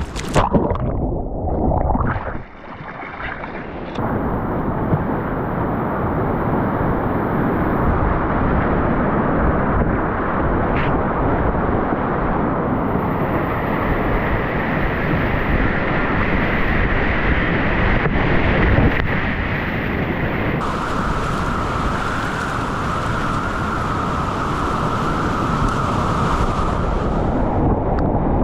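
Loud, steady rush of high-volume whitewater at Huka Falls, heard from the kayak, with water washing over the camera microphone. The sound briefly muffles and drops about two and a half seconds in.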